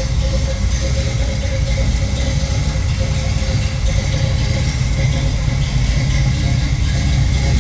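1972 split-bumper Camaro's engine idling steadily with a low, even rumble, freshly repaired after a blown gasket and running smooth.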